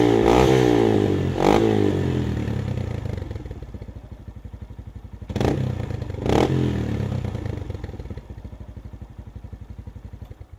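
Honda MSX125 (Grom) single-cylinder engine running through an aftermarket exhaust: revving at the start, with a short blip about one and a half seconds in, then dropping to a steady pulsing idle. Two more short throttle blips come around the middle, and the idle fades toward the end.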